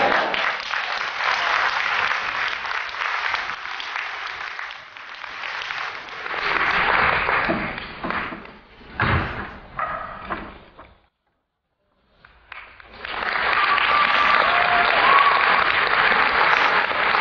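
Audience applauding, with a single knock about nine seconds in. The clapping breaks off around eleven seconds, and after a second of silence another round of applause starts.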